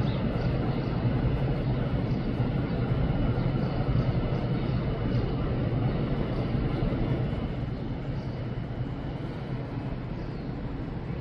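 Steady low engine rumble of city and harbour traffic, easing slightly after about seven seconds.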